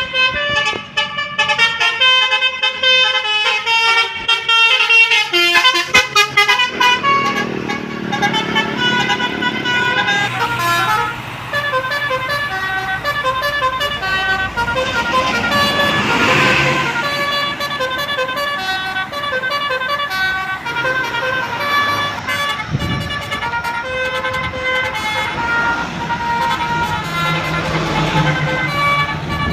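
Basuri 'telolet' musical bus horn playing a long run of short notes that step up and down in pitch, quick and choppy at first, then in steadier phrases. Passing traffic noise swells about halfway through.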